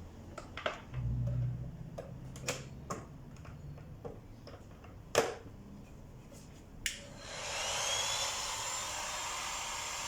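Several sharp clicks and knocks, then about seven seconds in a small electric motor starts, its whine rising in pitch and settling into a steady run.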